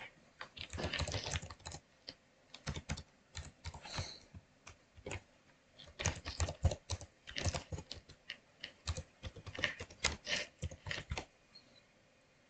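Typing on a computer keyboard, entering an email address and then a password: quick runs of keystrokes broken by short pauses, stopping about a second before the end.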